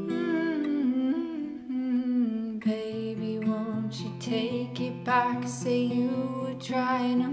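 A woman humming a slow, wordless melody over plucked notes on a Takamine acoustic guitar.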